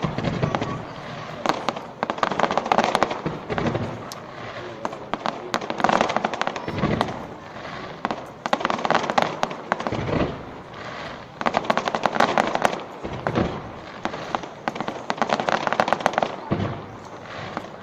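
Fireworks going off: waves of dense, rapid crackling every second or two, with a few deeper booms among them.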